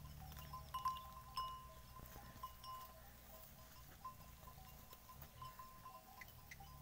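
Faint, scattered clinking and ringing of bells on a grazing herd of goats and sheep.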